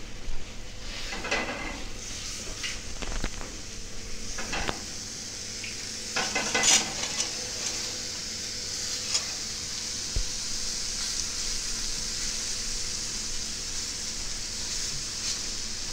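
Marinated eggplant slices sizzling on a hot griddle pan as they are laid down, with a few clinks and knocks of handling in the first few seconds. The sizzle swells about six seconds in and then holds steady.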